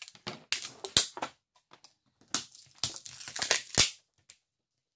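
Thin clear plastic mould sheeting crackling and tearing as it is ripped off a cured epoxy resin cube, in irregular bursts with two sharp snaps, about a second in and just before the fourth second. The plastic is bonded to the resin and has to be torn away.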